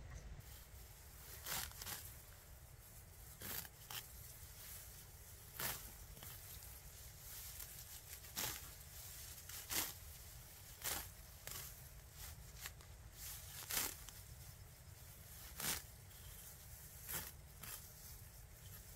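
A series of short scraping or tearing strokes at irregular intervals, roughly one every second or two, over a low steady rumble.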